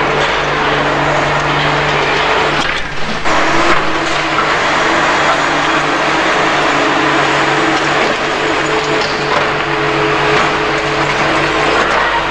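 Heavy engine of a police water cannon truck running steadily under a loud hiss, its hum shifting briefly about three seconds in.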